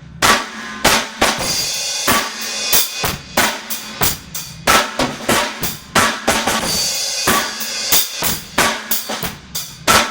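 Drum kit played in time: hi-hat, bass drum and snare, with a short accented snare fill of four strokes, right, left, left, right, taken from half of a six-stroke roll.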